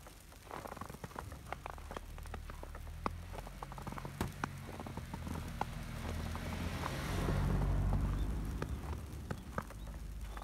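Footsteps crunching in fresh snow, with a car driving slowly past on the snow-covered road: its engine and tyres on the snow swell to their loudest about seven to eight seconds in, then fade.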